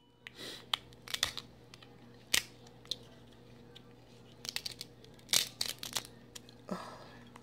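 Dungeness crab shell cracking and snapping as a cooked leg is broken open and picked apart by hand. It comes as irregular sharp clicks and crackles, thickest in a run about two-thirds of the way through.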